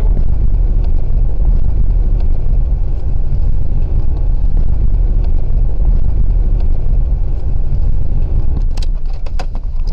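Steady low rumble of a car driving, its engine and tyre noise picked up by the dashcam inside the cabin. Near the end a few sharp clicks or knocks sound over the rumble.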